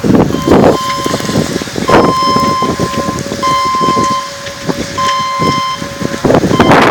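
Rough wind noise on the microphone with a steady pitched tone, like a horn or alert tone, that sounds in several stretches of about a second, breaking off and starting again.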